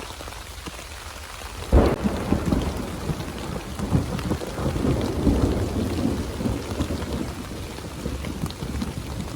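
Steady rain, then about two seconds in a sharp thunderclap that rolls on into a long, uneven rumble of thunder over the rain.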